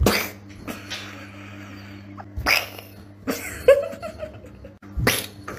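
A tabby cat giving about four short, abrupt calls a second or so apart, one of them a brief meow, over a steady low hum.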